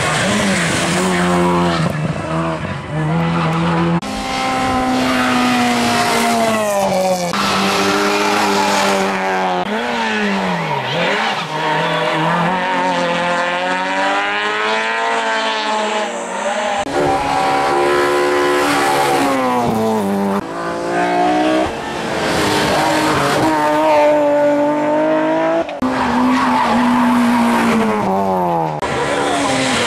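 Hill-climb race cars accelerating hard one after another, engines revving high and dropping back between gear changes, with abrupt cuts from one car's run to the next.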